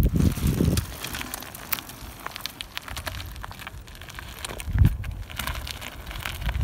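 Irregular crackling and crunching of gravel under mountain-bike tyres, with a short low bump about five seconds in.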